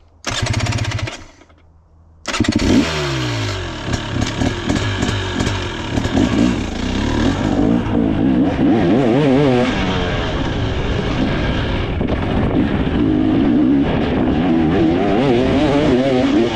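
2024 KTM 300 XC's two-stroke single-cylinder engine revving up and down as the dirt bike is ridden, its pitch rising and falling with the throttle. Near the start there is a short loud burst, then a lull of about a second before the riding sound begins.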